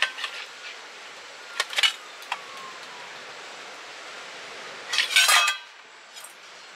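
Metal objects clinking and clattering: a few sharp clinks, then a louder, ringing clatter about five seconds in.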